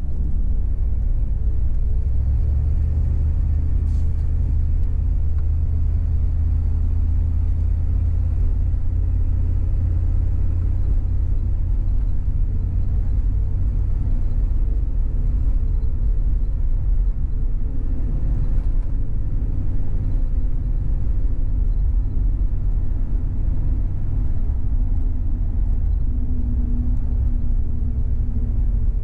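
A moving SUV, with a steady low rumble of engine and road noise and no change in pace.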